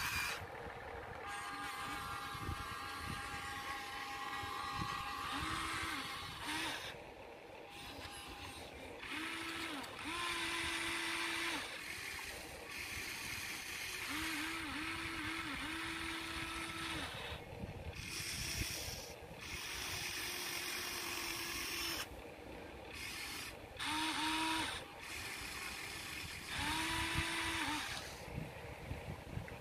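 HuiNa 1593 radio-controlled model excavator's electric motors and gearboxes whirring in short runs that start and stop again and again as the cab swings round and the boom and arm move.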